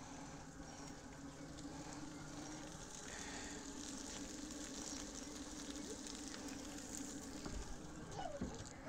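Burger patties frying on a Blackstone flat-top gas griddle, giving a faint, steady sizzle.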